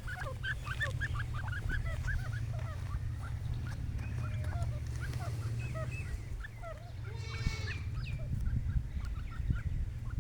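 Many short bird chirps overlapping one another, with a louder, harsher call about seven seconds in, over a steady low hum.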